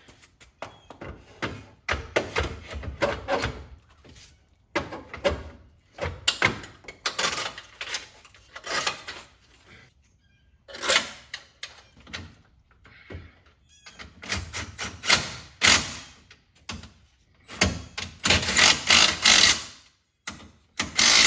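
Irregular knocks and metal clunks as the front crash bar (bumper reinforcement) of a BMW 335xi is handled and fitted onto the front of the car, the loudest clatter coming near the end.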